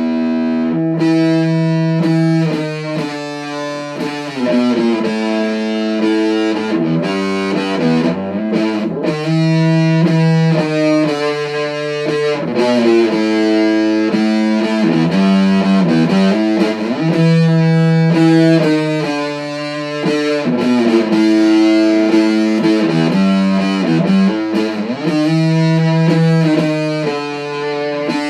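Distorted electric guitar playing a riff of held, stacked notes that change every second or so, with effects on the sound.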